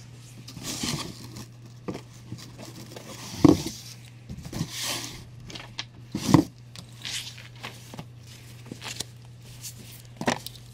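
Comic books being handled in a cardboard shipping box: papery rustling and sliding as issues are pulled out and shuffled, with two soft thumps about three and a half and six seconds in. A steady low hum runs underneath.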